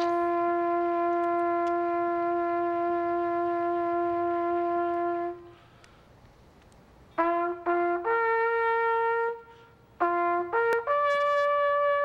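Solo trumpet playing long-tone practice: one note held steady for about five seconds, then after a short pause two brief notes and a higher held note, and after another pause a quick pair of notes leading to a still higher held note.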